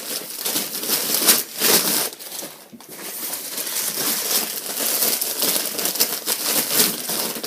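Packing paper crinkling and rustling in bursts as it is handled and pulled away while a boxed fingerboard ramp is unwrapped.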